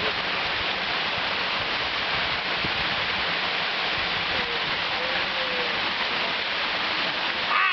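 Waterfall pouring, a steady rush of falling water that does not change in level.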